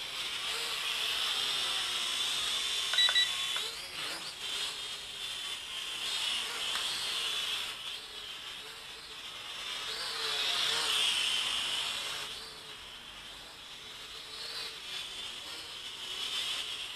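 Small toy quadcopter's motors and propellers whining, swelling and fading as the throttle changes. A short electronic double beep comes about three seconds in.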